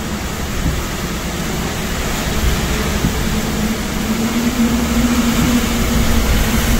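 Hurricane Helene's eyewall wind and driving rain roaring as a loud, even noise, with a steady low hum underneath that grows stronger in the second half.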